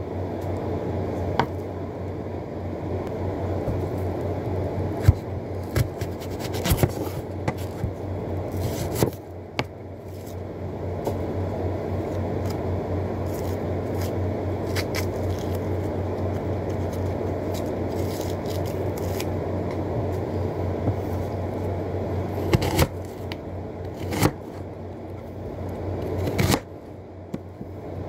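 Hand-preparing raw vegetables: a red onion peeled by hand and a small kitchen knife cutting onion and tomato, giving scattered scrapes and scratches and sharp knocks of the blade, over a steady low hum.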